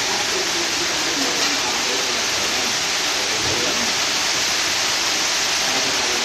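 Steady, loud rushing hiss, with faint voices underneath.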